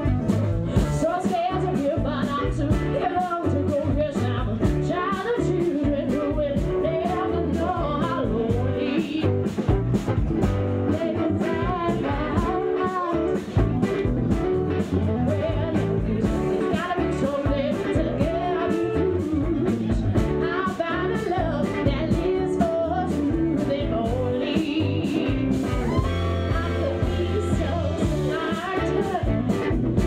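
Band playing a bluesy rock-soul song: a woman singing lead over electric guitar, bass and drums, with a steady beat.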